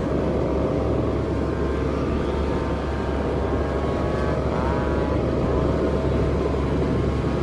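Humming bow (guangan) on a large Balinese bebean kite droning in the wind: a steady hum of several tones that waver and slide upward about four and a half seconds in, over wind rumble on the microphone.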